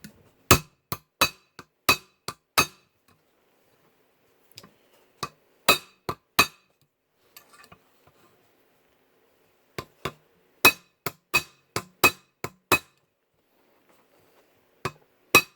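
Small brass hammer tapping a brass rivet in a knife handle, peening it flush: sharp metallic taps in runs of several, about two to three a second, with pauses between the runs.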